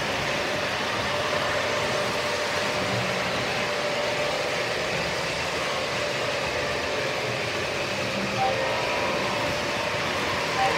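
Model trains running on a home layout, their wheels and motors giving a steady rolling rumble on the track. Two brief high chirps come near the end.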